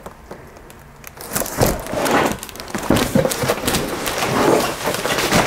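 Cardboard boxes and plastic-wrapped packaging being handled: crackling, scraping and a few thuds, starting about a second in.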